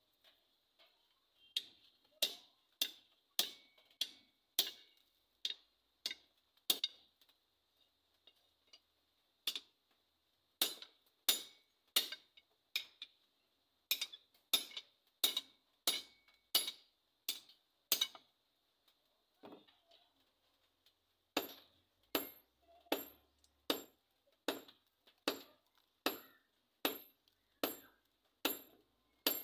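Hand hammer striking a red-hot bolo blade on a small steel anvil: sharp ringing metal blows at about two a second, in runs broken twice by short pauses.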